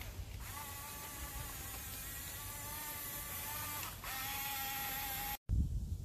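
Radio-controlled model bulldozer's electric track motors and gearboxes whining steadily as it drives forward, the pitch dropping slightly about four seconds in. Near the end it cuts off suddenly to a low buffeting rumble.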